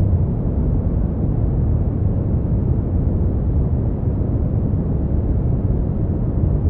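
Steady brown noise: an even, deep rushing hiss, heaviest in the bass and falling away toward the treble, with no changes.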